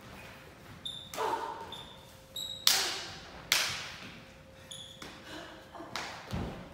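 Stage-combat scuffle: sneakers squeak sharply on the studio floor, two loud slap-like smacks about a second apart ring through the hall, and a low thud lands near the end.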